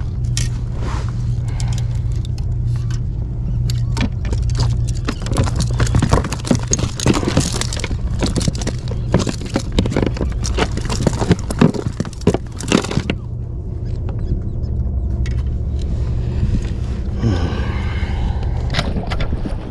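Handling noise in an inflatable boat: a dense run of clicks, knocks and scrapes from about four to thirteen seconds in, as a landed queenfish is held on the floor with a lip grip and the rod and line are worked. Wind on the microphone makes a steady low rumble underneath.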